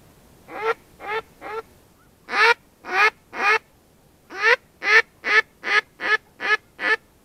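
A mouth-blown duck call imitating a mallard hen, giving a string of about fourteen quacks to lure ducks in to the decoys. Three softer quacks come first, then three long, loud ones, then a quicker run of eight shorter quacks.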